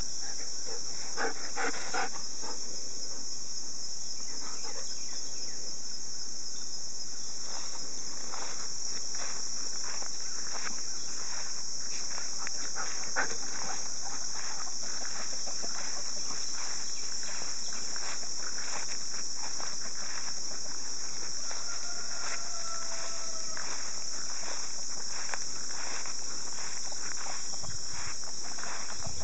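Steady, high-pitched chorus of insects buzzing without a break, with scattered brief rustles.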